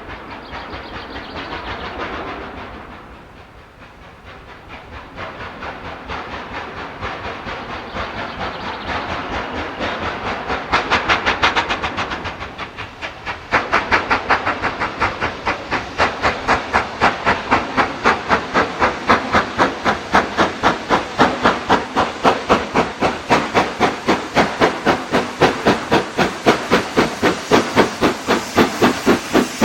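LMS Black 5 4-6-0 steam locomotive No. 45407 working. Steam hiss and uneven chuffs at first; from about halfway the exhaust beats settle into a steady rhythm of about two a second.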